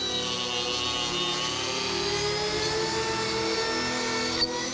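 Dremel 4300 rotary tool with a carving burr whining at high speed as it grinds into wood; its pitch dips a little and slowly climbs back. A brief click and break in the sound near the end.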